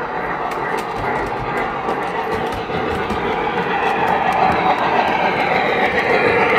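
Metal model steam locomotive running past, its sound system giving a continuous steam-train chuffing with the clatter of wheels on the track, growing louder as it comes close.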